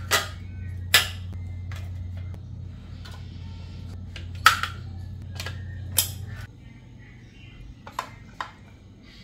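A series of sharp knocks and clinks from objects being handled, over a steady low hum that stops about six and a half seconds in.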